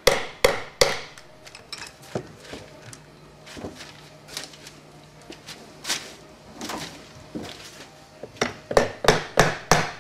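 Hammer tapping on a Honda Accord automatic transmission's case, knocking the rear housing section loose from its dowel pins. Three sharp taps come at the start, then scattered lighter knocks, then a quick run of taps about three a second near the end.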